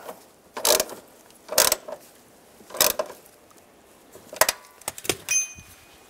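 Hand ratchet with socket tightening a door hinge bolt: short bursts of ratchet clicking about a second apart, with a light metallic clink near the end.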